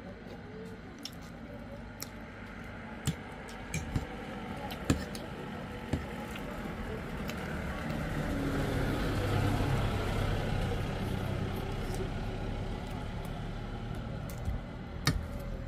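Eating sounds: a metal fork clicks sharply against a plate several times while noodles are sucked up and chewed. A motor vehicle passes on the road, its engine rumble swelling to a peak about two-thirds of the way through and then fading.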